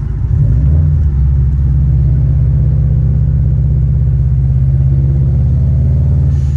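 Car engine pulling steadily up a hill, a low steady drone that swells about half a second in and then holds.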